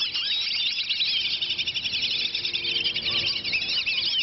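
A flock of whistling ducks calling all together in many overlapping high, squeaky whistles, a constant chatter as the birds squabble, over food it seems.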